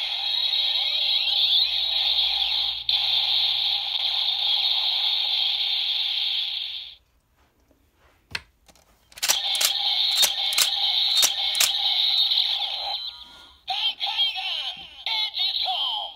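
Kamen Rider Ghost Driver toy belt playing its electronic sound effects and music through a small, tinny speaker. The sound stops about seven seconds in, a single click follows, and then it starts again with a run of sharp clicks and carries on in short stretches.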